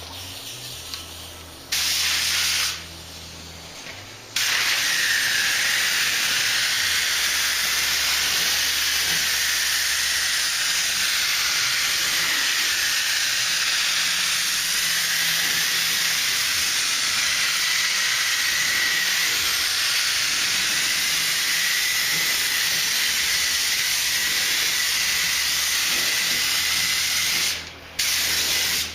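Automotive paint spray gun laying down a heavier coat of clear: a short burst of spray about two seconds in, then a steady hiss of air and paint held for over twenty seconds with a faint whistle in it, released just before the end.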